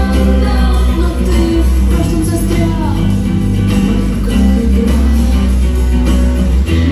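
A pop song playing loudly, with singing over a steady bass and percussion.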